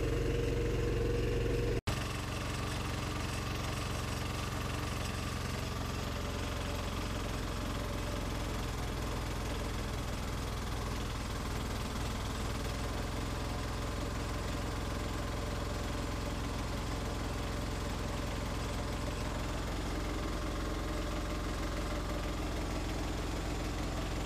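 Honda GX160 single-cylinder four-stroke engine driving a generator, running steadily under electrical load.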